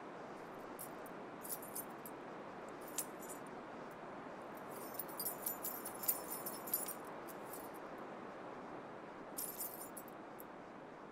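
Faint light metallic jingling in scattered bursts, like small bells or a chain, busiest in the middle and again near the end, over a steady hiss.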